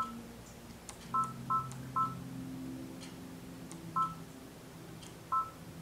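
Brother Dream Machine embroidery machine's touchscreen beeping as its size buttons are tapped with a stylus: six short two-tone beeps, unevenly spaced, each one confirming a press that steps the design a little larger.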